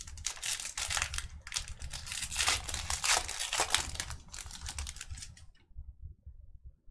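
Foil wrapper of a Panini Phoenix football card pack crinkling and tearing as it is ripped open by hand: a dense crackle that stops about five and a half seconds in.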